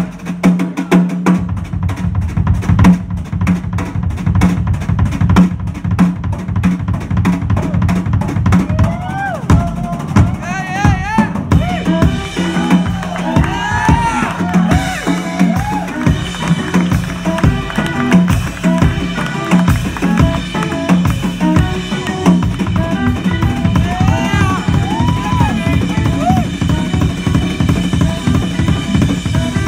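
Yamaha drum kit played live in a busy, continuous groove of bass drum, snare and rim strokes, over a held low note. From about twelve seconds in, sustained higher chord tones join, and short swooping pitched sounds rise and fall above the drums.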